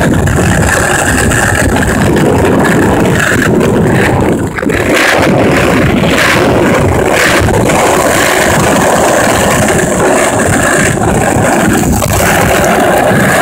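Wheels rolling over rough, cracked asphalt: a loud, steady noise that dips briefly about four and a half seconds in.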